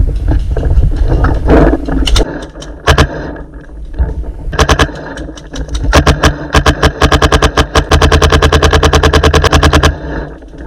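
Planet Eclipse Etha 2 .50 cal paintball marker firing, heard from a camera mounted on its barrel. There are single shots about two and three seconds in, then faster strings, then a steady rapid stream of about ten shots a second that stops near the end. A heavy low rumble of wind and handling noise runs underneath.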